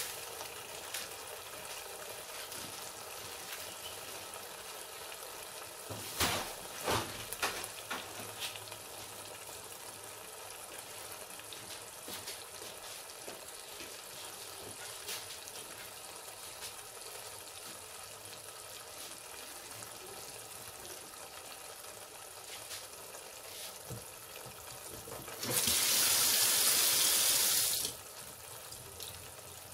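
Masala sizzling as it fries in a steel pot, a steady hiss. About six to eight seconds in come a few knocks of the wooden spatula against the pot. Near the end a much louder hissing rush lasts about two seconds and cuts off suddenly.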